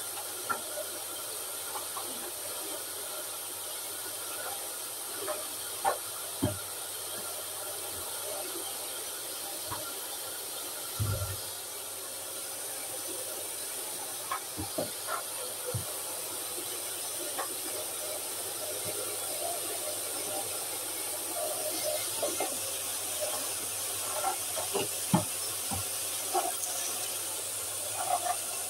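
Vacuum cleaner running steadily as its hose and wand are worked around the room, a high-pitched hiss over a low hum, with scattered clicks and knocks.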